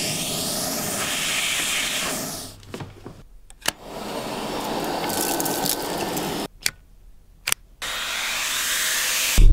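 Dyson Ball Animal 2 upright vacuum cleaner running, its steady motor and suction noise heard in three stretches. It breaks off twice briefly, with a sharp click or two in each break.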